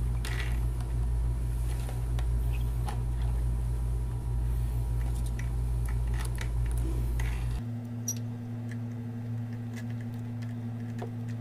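Small clicks and scrapes of a screwdriver and metal fittings as a metal guide fin is screwed onto the transom of a model boat, over a steady low hum that changes pitch about seven and a half seconds in.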